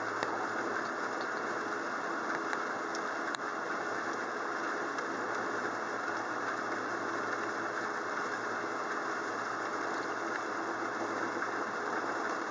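Thunderstorm rain falling steadily, an even hiss with a few sharp drip ticks in the first few seconds.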